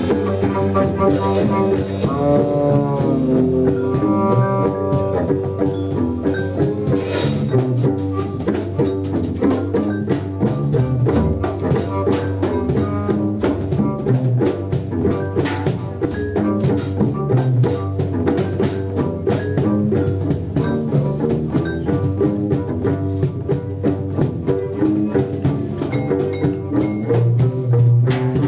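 Live band playing a jazz-like groove on drum kit and percussion. A muted trumpet plays a line with bending notes in the first few seconds, and near the end a plucked gimbri comes in.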